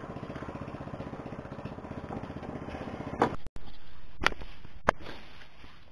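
A small engine running with a fast, even chug, which breaks off suddenly about three and a half seconds in. Two sharp clicks follow.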